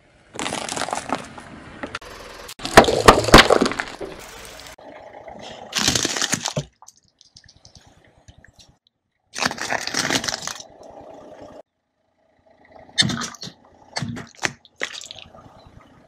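Car tyre rolling over and crushing brittle objects, candy canes and hard plastic toys, in a string of short edited clips: loud cracking and crunching, each stretch cutting off abruptly, the loudest about three seconds in.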